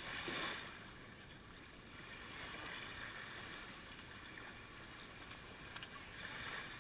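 Small waves washing up over the sand at the water's edge, close to the microphone, with a louder wash in the first second.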